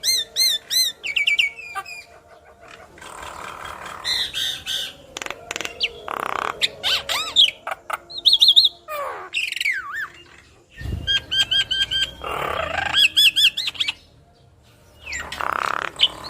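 Javan myna singing vigorously. The song is a varied string of rapid repeated whistled notes, sliding whistles and harsh rasping calls, broken by short pauses.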